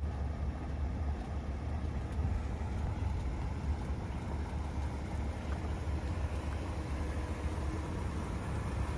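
BMW 645Ci's 4.4-litre V8 with its stock exhaust idling steadily: a deep, even engine note with no revving.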